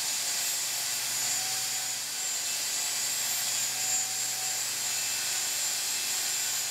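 Belt grinder running with a metal part pressed against its abrasive belt, grinding a small chamfer: a steady grinding hiss over the motor's low hum.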